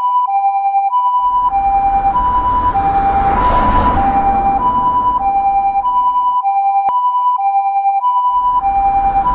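Electronic two-tone level-crossing alarm, alternating a high and a low tone about every half second. Over it a passing train's rushing rumble swells up about a second in, fades out at about six seconds, and comes back near the end.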